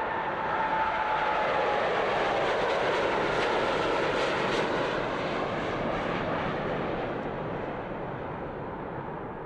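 Jet airliner noise: a whine near the start that drops slightly in pitch, under a broad rushing sound that slowly fades over the last few seconds.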